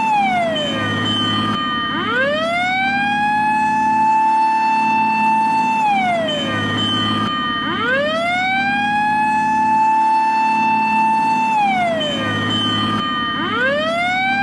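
Japanese fire engine siren wailing in long cycles: the pitch rises quickly, holds a high note for about four seconds, then slides down, about every six seconds, over a steady low hum.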